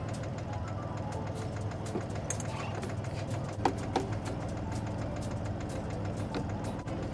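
Sailing yacht's inboard diesel engine running steadily at low revs in reverse gear, with a couple of sharp knocks about halfway through.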